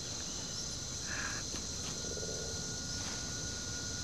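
Forest ambience dominated by a steady, high-pitched drone of insects such as crickets. A second, thinner insect tone joins about a second and a half in, and a short faint call sounds about a second in.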